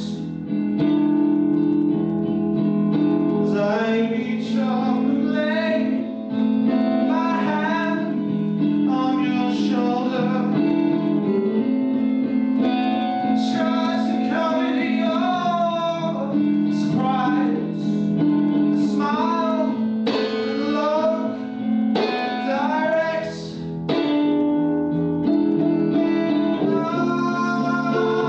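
A woman singing a song to her own acoustic guitar, the sung melody gliding over steady strummed chords.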